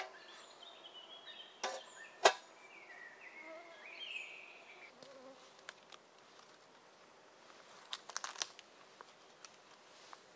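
Birds singing faintly in a stepped, changing pitch, with two sharp snaps about two seconds in, the second the loudest, and a quick cluster of clicks near the end.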